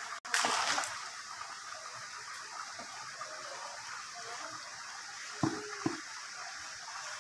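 A brief rush of splashing water, about half a second long, just after the start, as a pan of water and its contents is tipped into a bucket. A steady faint hiss follows, with two short sounds close together near the end.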